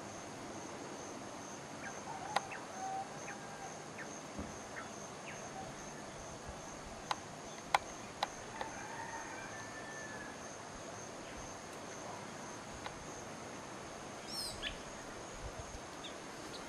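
Outdoor ambience of a steady high insect trill with scattered short bird calls, including a quick run of falling chirps near the end. A few sharp clicks stand out as the loudest sounds.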